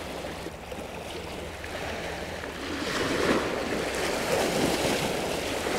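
Small sea waves washing against a rocky shore, an even rushing wash that swells a little about halfway through.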